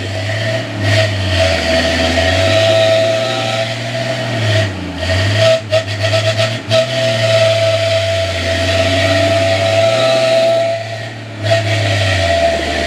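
Off-road 4x4 engine running and revving up and down under load, with a steady high whine over it and a few sharp knocks about halfway through.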